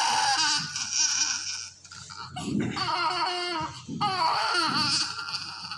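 Newborn baby with abdominal distension crying in long, wavering wails: one cry, a broken stretch with a catch of breath, then another cry that fades near the end. The crying comes from his discomfort.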